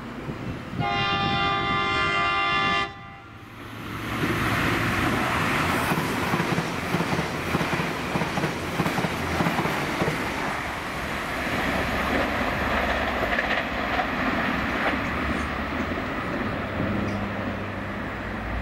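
Irish Rail 22000 Class InterCity Railcar diesel multiple unit sounding one loud, steady horn blast of about two seconds, then passing at speed. The pass is a loud continuous rush of engine and wheel-on-rail noise with clicking over the rail joints, easing slightly toward the end as the train draws away.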